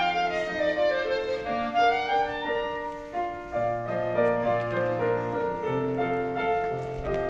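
Clarinet and piano playing classical music. A quick run of notes comes first, then longer held clarinet notes over a piano bass line from about halfway through.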